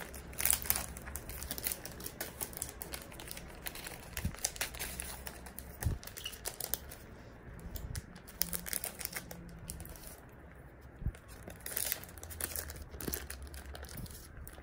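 Clear plastic cellophane sleeves crinkling in irregular bursts as photo prints are slid out and handled.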